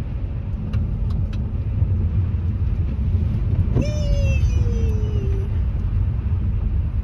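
Steady low rumble of a Nissan Maxima driving on snowy streets, heard from inside the cabin. About four seconds in, a pitched sound slides down in pitch for about a second and a half over the rumble.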